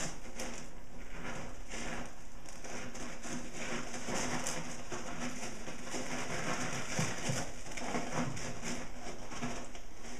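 Repeated scratchy scraping and rustling of cat litter inside a hooded plastic litter box, a cat digging, busiest in the middle.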